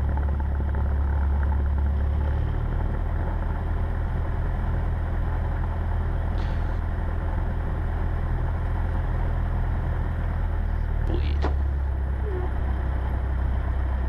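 Cessna 172 engine and propeller running at low taxi power, heard through the headset intercom as a steady low hum that shifts in pitch a couple of times. Two short clicks, about six and eleven seconds in.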